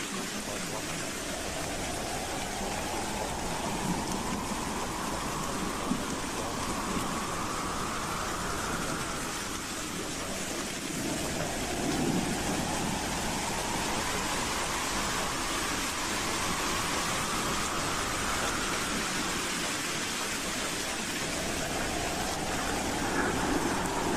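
Howling wind: a steady rushing noise with a whistling howl that slowly rises in pitch over several seconds, coming back about every ten seconds, with low gusty swells under it.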